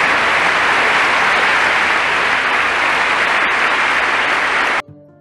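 Large crowd applauding in a standing ovation: thick, steady clapping that cuts off abruptly near the end.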